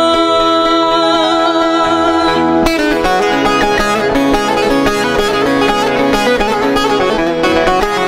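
A woman singing a Turkish folk song (türkü) holds a long steady note, then about two and a half seconds in an instrumental break on plucked strings comes in abruptly, with fast, busy runs of notes over the accompaniment.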